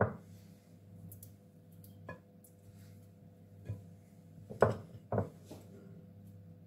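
A table knife cutting cold butter and vegetable fat into a bowl of flour: a handful of soft, separate knocks and clicks as the knife and pieces of fat meet the bowl, over a faint steady hum.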